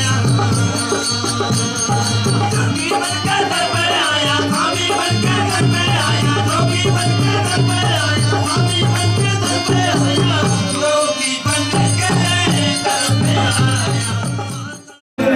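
Background music with a steady rhythmic beat and busy percussion under melodic lines; it cuts out for a moment near the end.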